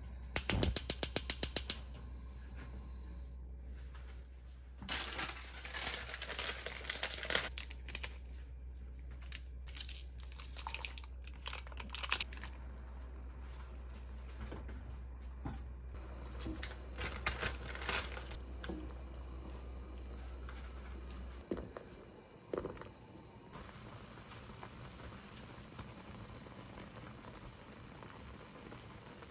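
Close handling noises: crinkling and rustling in scattered bursts, with a quick run of sharp clicks in the first two seconds, over a steady low hum that cuts off about two-thirds of the way through.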